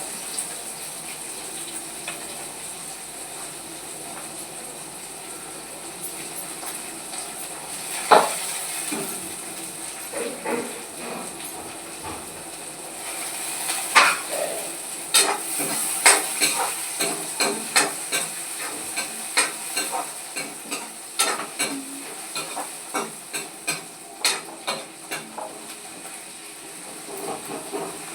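Green beans and potatoes sizzling in a pan while a spatula stirs them. There is a sharp knock about a third of the way in, then a run of quick clicks and scrapes of the spatula against the pan, about one to two a second, through most of the second half.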